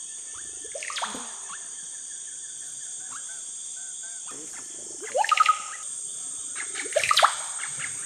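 Oropendola calling: loud, quickly sweeping notes about a second in, again around five seconds and around seven seconds in, over a steady high hiss of insects.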